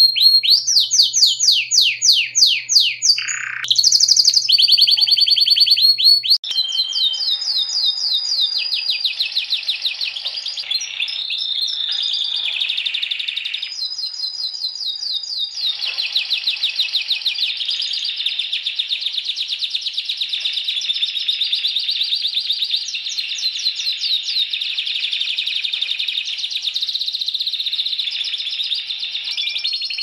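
Domestic canaries singing long runs of rapid trills and rolls. Under the first few seconds there is a faint low hum. About six seconds in the hum drops out and the song changes character, running on as a steady stream of fast trills.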